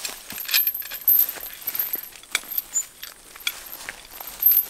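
Irregular metallic clinks and rattles from a hand wire-tensioning tool working on taut barbed fence wire.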